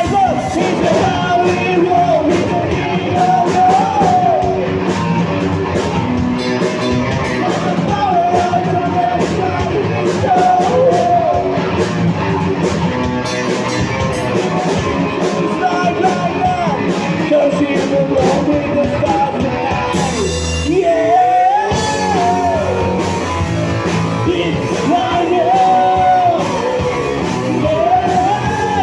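A rock band playing live and loud, with a wavering sung or lead melody over a full band. About twenty seconds in the high cymbal wash drops out for a moment, with a low hit and a rising line, before the full band comes back.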